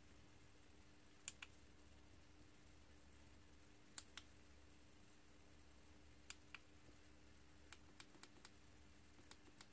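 Near silence with a faint steady hum, broken by about a dozen small sharp clicks, mostly in quick pairs and bunched together near the end: the buttons of a cheap MP3 player being pressed while it stays silent.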